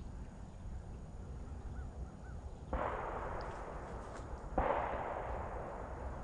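Two shotgun shots about two seconds apart, not loud, each followed by a long rolling echo that fades slowly.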